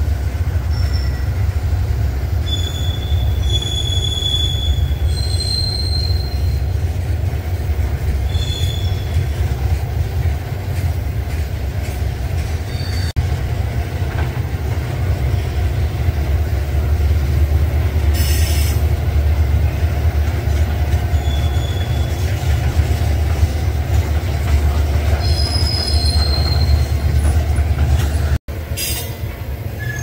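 Loaded ore hopper cars rolling past on steel rails: a steady heavy rumble of wheels, broken by short high-pitched wheel squeals several times and a brief harsh metallic screech a little past the middle.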